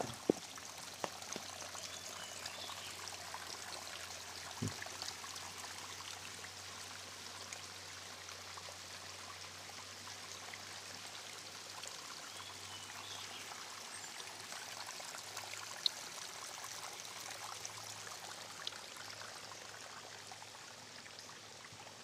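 Spring water trickling down a moss-covered rock face and running over stones in a small creek: a steady, fairly faint rush of water, with a few small clicks and knocks.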